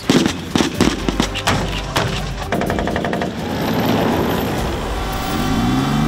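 Gunfire in a live-fire exercise: a string of separate shots, then a fast, regular automatic burst about halfway through. Near the end a military vehicle engine is heard speeding up.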